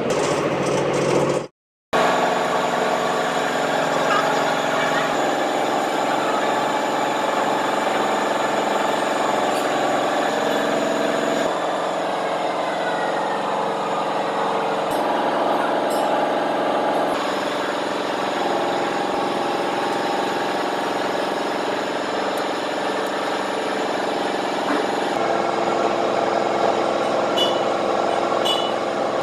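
Steady workshop machinery noise that changes abruptly at several cuts, with a brief dropout about a second and a half in.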